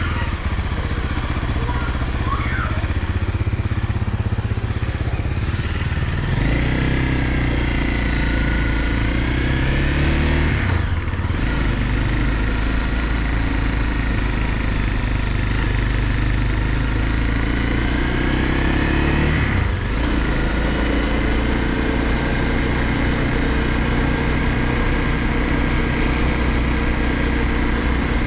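Honda CRF250L's single-cylinder engine running under way, its pitch climbing as it accelerates and dropping sharply at gear changes about eleven and twenty seconds in.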